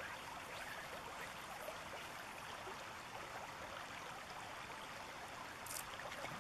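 Steady rush of a shallow river running over a stony riffle, with a brief high hiss near the end.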